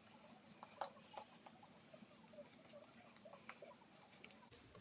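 Faint, irregular scratching and crackling of a Gillette Tech safety razor blade cutting through lathered stubble.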